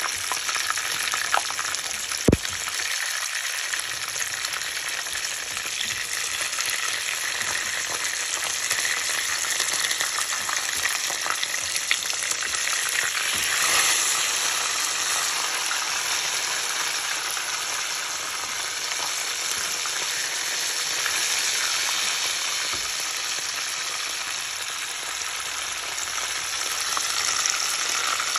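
Whole fish shallow-frying in hot oil in a frying pan, a steady dense sizzle that swells a little about halfway through. A sharp tap about two seconds in.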